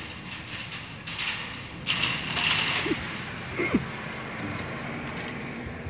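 Pit bull chewing and crunching chicken, in bursts that are loudest about two to three seconds in.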